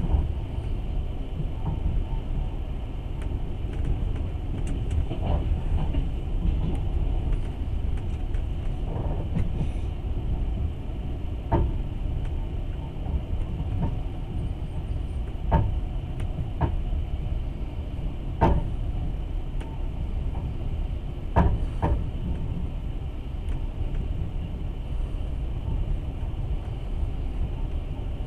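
Passenger train running on the rails, heard from inside the carriage: a steady low rumble with a few sharp wheel knocks on the track in the second half, two of them close together near the end.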